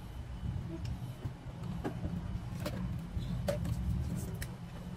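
Light clicks and knocks of plastic toy kitchen pieces being handled, a few scattered sharp taps, over a steady low rumble.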